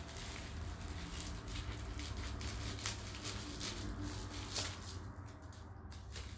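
Plastic mailer bag rustling and crinkling in the hands as it is handled and opened, in short irregular crackles.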